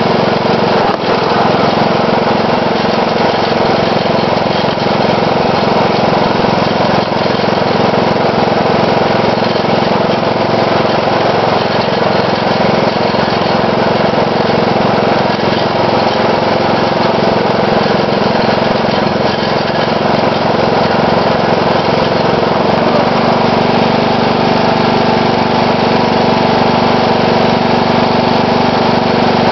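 Riding lawn mower's 12.5 hp Briggs & Stratton single-cylinder engine running steadily and loud, heard close up. Its note shifts slightly about two-thirds of the way through.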